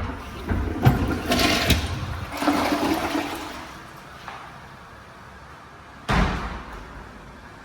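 Toilet flushing: a rush of water starts about half a second in and fades away over the next few seconds. A sharp bang about six seconds in decays quickly.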